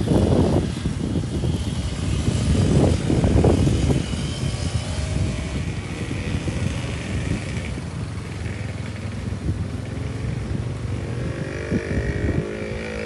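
Small motorcycle engines running, with two louder surges of revving in the first four seconds before settling to a steadier running sound.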